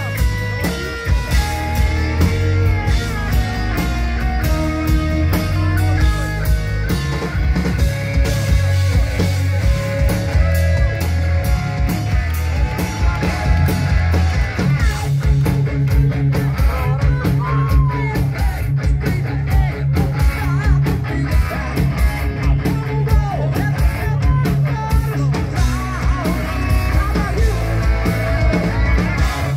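Live rock band playing loudly with electric guitars, bass and drums, heard from among the audience.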